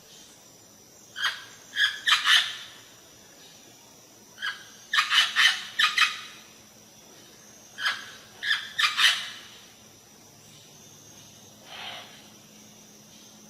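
Parrot calling in short, sharp squawks that come in quick runs of several calls every few seconds, with a single fainter call near the end.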